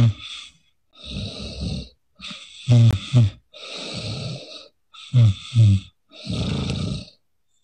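A sleeping woman snoring heavily. Long rasping breaths alternate with short, loud voiced snorts, the cycle repeating about every two and a half seconds. It is the kind of snoring the narrator ties to sleep apnoea from obesity.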